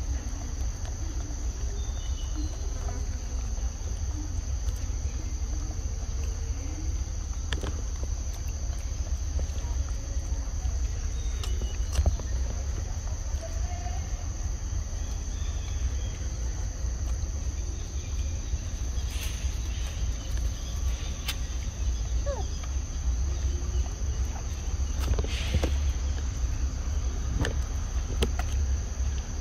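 Steady high-pitched drone of insects, over a constant low rumble, with scattered small clicks and rustles.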